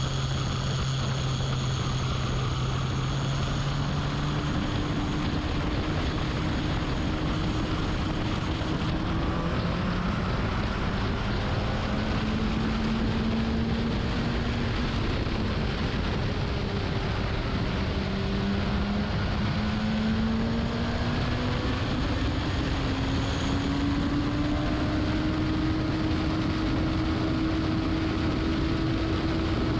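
Racing car engine running hard, its pitch jumping up about four seconds in and then repeatedly climbing and dropping as it accelerates, slows and changes gear, over a steady rush of wind and road noise.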